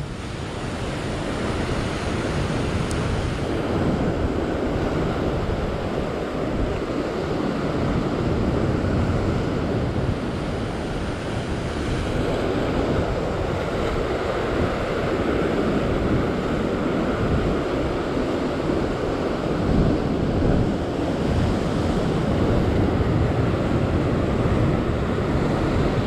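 Rough sea surging and breaking over shoreline rocks in a steady, churning wash, with wind buffeting the microphone.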